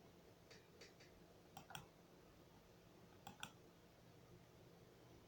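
Near silence with a low hum, broken by a few faint clicks that come in close pairs, three times.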